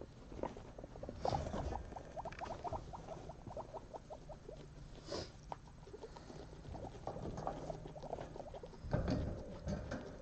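Guinea pigs chewing hay: runs of quick, crisp crunching clicks, about seven a second, with rustling in the hay and paper bedding, loudest near the end.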